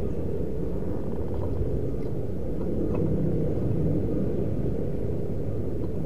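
A steady low rumble of background noise, with no clear bird calls.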